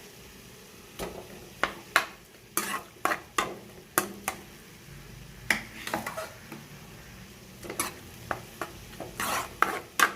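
A spoon stirring cooked rice into tempered curd in a pan, with irregular scrapes and knocks of the spoon against the pan.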